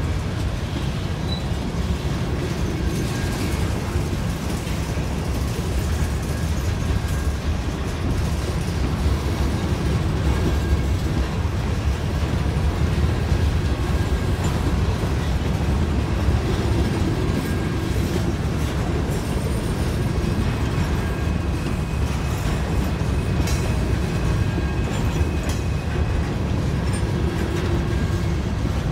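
An empty grain train's covered hopper cars rolling past, giving a steady low rumble of wheels on rail.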